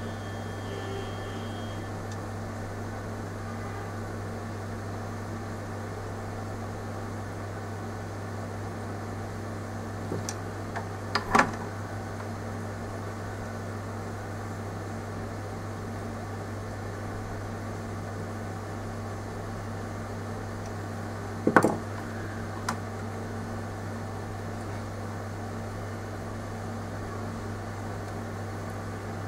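Steady low electrical hum with a fan-like hiss, broken by two sharp clicks or taps, one about eleven seconds in and one about twenty-two seconds in.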